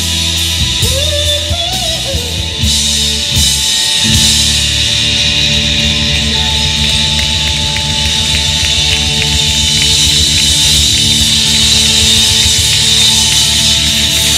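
Live blues-rock band playing: an electric guitar leads over bass guitar and drums, with a few bent, gliding notes in the first two seconds and cymbals washing steadily over the top.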